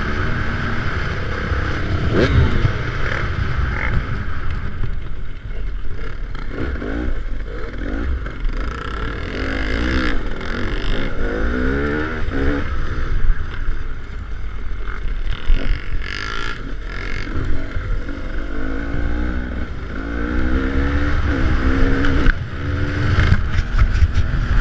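Off-road vehicle engine on a trail ride, revving up and down again and again, with low rumble and wind buffeting the microphone.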